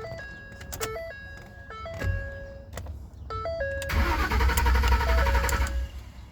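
2010 Ford truck's starter cranking the engine, once briefly and then again for a couple of seconds, without it catching. It is a crank-but-no-start caused by a blown fuel pump fuse, so the pump gets no power.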